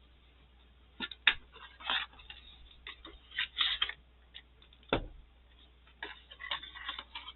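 A new hardcover planner notebook being handled: scattered rustles and small clicks, with a thump about five seconds in.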